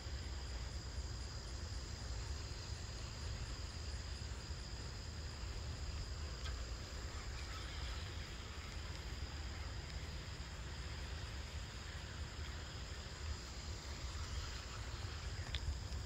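Insects droning steadily in a high, even buzz, over a low steady rumble.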